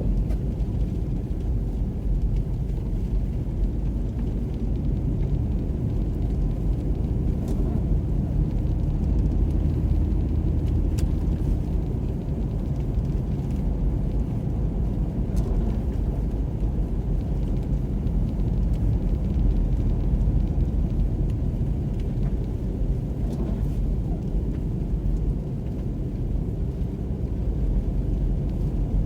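Steady low rumble of a car driving over a snow-covered road, heard from inside the cabin: engine and tyre noise, with a few faint clicks.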